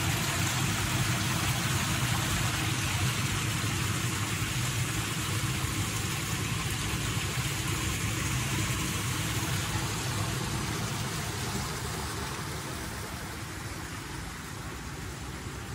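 A steady low engine hum under a broad hiss, easing off a little near the end.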